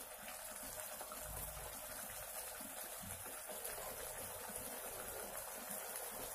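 Matar paneer gravy simmering in a kadai over a lit gas burner: a faint, steady hiss.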